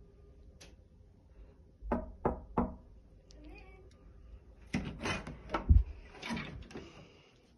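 Three quick knocks on a wooden interior door, then a run of sharp clunks and a low thump as the metal lever handle is pressed and the door is pushed open.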